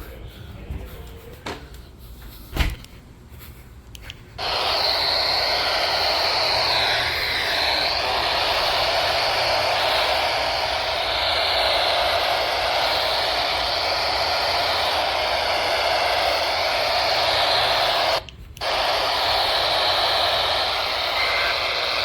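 A few faint clicks, then about four seconds in an AM radio cuts in with loud, steady static hiss and faint wavering whistles. This is a weak, staticky AM relay of the tornado warning being received. The static drops out for a moment near the end and comes back.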